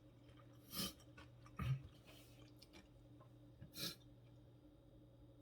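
Faint close-up eating sounds: a few short, separate chewing and mouth noises, with a soft low bump about a third of the way in.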